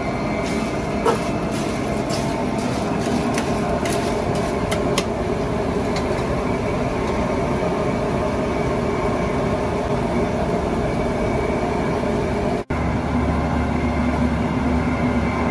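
Steady loud roar of machine-like background noise, with a few light clinks in the first five seconds. It cuts out for an instant about twelve and a half seconds in and comes back with a deeper, steadier hum.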